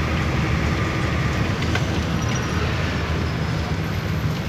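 Steady engine rumble and road noise of a vehicle driving along a highway, heard from inside it.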